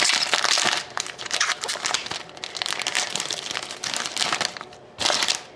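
Shiny foil wrapper of a hockey card pack being torn open and crinkled in the hands: a continuous irregular crackling, with a louder crinkle about five seconds in.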